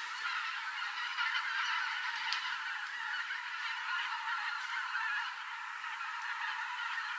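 A large flock of migrating wild geese flying over, honking continuously, with many calls overlapping.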